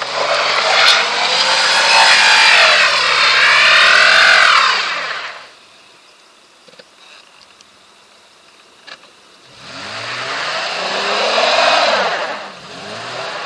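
Mitsubishi Pajero's engine revving hard as it climbs a snowy slope on all-terrain tyres, its wheels spinning and churning snow. The revs hold high and waver for about five seconds, drop away to a low idle for about four seconds, then rise and fall again in a second burst near the end.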